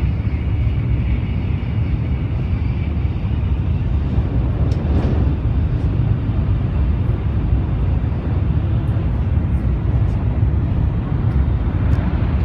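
Cabin noise of a Tokaido Shinkansen N700A bullet train running at high speed: a steady low rumble with a brief swell of noise about five seconds in.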